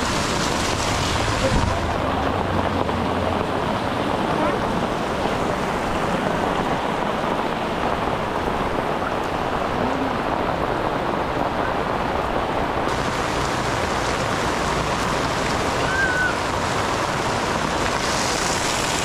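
Heavy tropical downpour: a dense, steady hiss of rain falling on a wet street and on roofs and tarpaulins. Near the end, closer splashing of water pouring off a roof edge onto the pavement.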